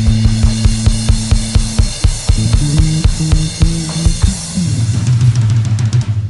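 Rock music with a fast, steady drum-kit beat, bass drum and cymbals, over sustained bass and guitar notes.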